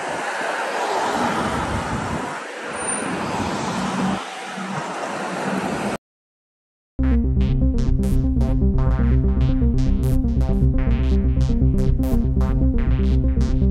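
Cars passing on a town street, then about six seconds in the sound cuts out completely for a second, and a synthesizer news-intro theme with a steady beat starts.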